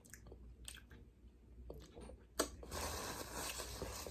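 Close-up chewing of a glazed donut and fried chicken sandwich, with small wet mouth clicks and smacks. About two and a half seconds in there is a sharp click, followed by a steady rustling hiss to the end.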